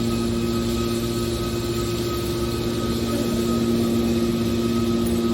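Heavy machinery running with a steady hum and even mechanical noise.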